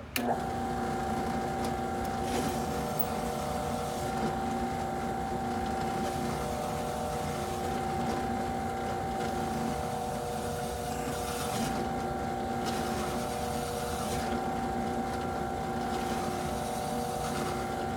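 Skil benchtop drill press switched on and running steadily, its motor giving a steady whine with a fixed pitch, as a hole saw is fed down into an aluminum panel. The hole saw clogs up with aluminum chips during the cut.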